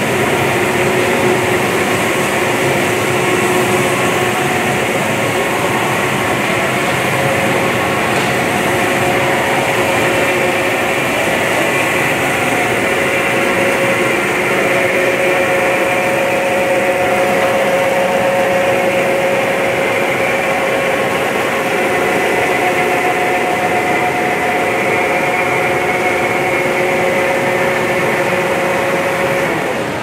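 Steady machine drone, a dense even noise with a few faint held tones, that drops off abruptly at the very end.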